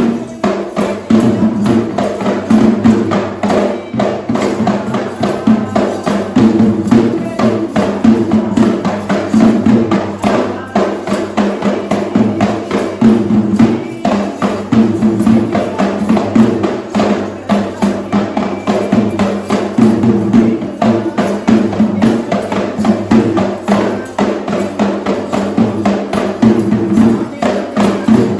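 Traditional Sri Lankan drums played for a ritual dance, beaten in a fast, dense, unbroken rhythm.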